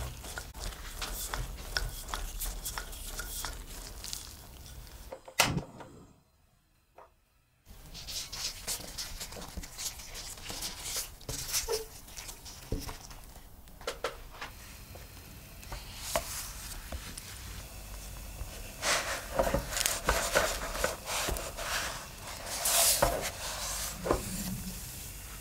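Kitchen handling sounds: a wooden rolling pin rolling and rubbing over soft dough on a wooden table, a sharp knock, then near silence for about two seconds. After that comes soft handling of the dough by gloved hands, and later a stuffed flatbread frying in a non-stick pan, sizzling, with louder stretches near the end.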